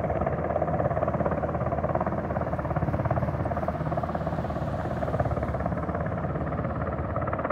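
Helicopter rotor chop: a steady, fast, even beating from the blades of a helicopter in flight.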